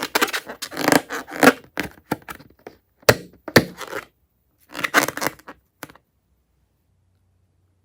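Slime and balloons being handled by hand: bursts of sticky crackling and clicking, with two sharp clicks about three and three and a half seconds in, stopping about six seconds in.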